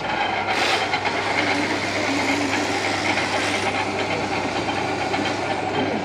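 Steady low electrical hum of kitchen machinery at a rotisserie chicken stall, with a short hiss about half a second in.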